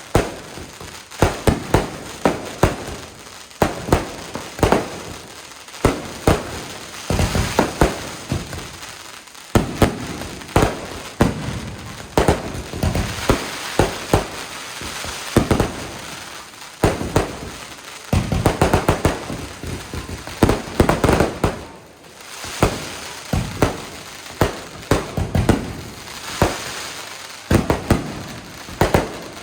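Fireworks going off in quick succession: a dense run of sharp bangs, often several a second, over continuous crackling, with a short lull about three-quarters of the way through.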